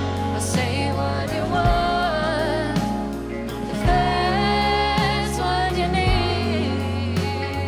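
Live band playing a slow rock song: electric guitar, bass and a steady drum beat, with a woman singing over it, her held notes wavering with vibrato.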